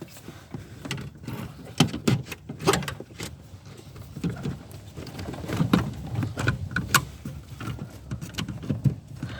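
Irregular clicks, knocks and rustling from hands handling wiring and plastic parts of a car's rear light assembly.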